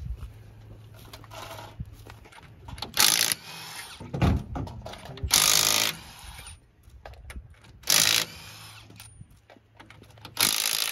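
Impact wrench on a rally car's wheel nuts during a tyre change: four short bursts, each under a second, the longest about halfway through, with small clanks of the wheel and tools between.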